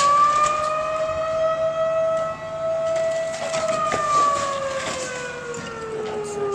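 A siren's slow, drawn-out wail: the pitch rises, holds steady for a few seconds, then slowly falls away. Faint knocks and crunches of brick debris from an excavator demolishing a building sound under it.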